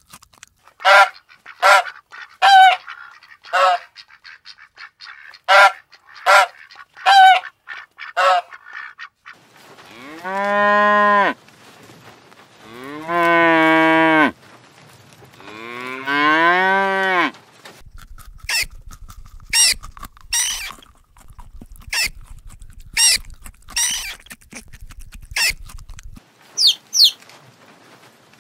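A rabbit crunching a lettuce leaf in about a dozen quick bites, then a cow mooing three times, each call long and drawn out. After that, young chicks cheep in short, high calls.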